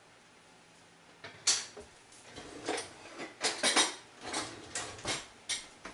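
Kitchen clatter: utensils and dishware knocking and rattling on a countertop. It is an irregular string of sharp clicks and clanks that starts about a second and a half in.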